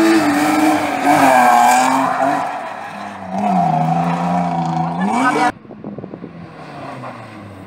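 Rally car engine revving hard and changing gear at speed, its pitch rising and falling. About five and a half seconds in the sound drops away abruptly, leaving a fainter engine further off.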